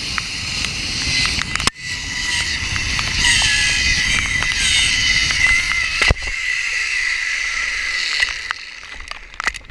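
Zip-line trolley pulleys running fast along a steel cable with a steady high whine, under heavy wind rush. The noise falls away near the end.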